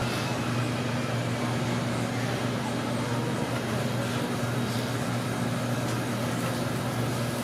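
Steady machine hum, a low drone with an even hiss over it, unchanging throughout.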